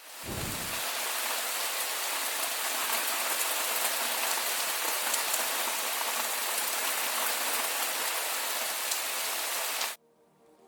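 Steady rain falling, a dense even hiss with scattered individual drops. It cuts off suddenly near the end, and soft music begins.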